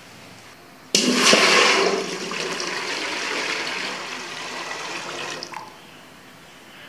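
Water poured in a stream into a stainless steel pot, filling it with about four litres. The pour starts suddenly about a second in, loudest at first, then runs steadily until it stops about five and a half seconds in.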